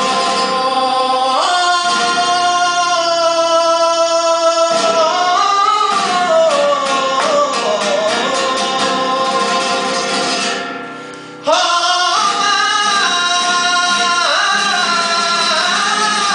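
Male flamenco singer (cantaor) singing long, wavering, ornamented lines over flamenco guitar accompaniment. The voice breaks off for about a second a little past the middle, then resumes.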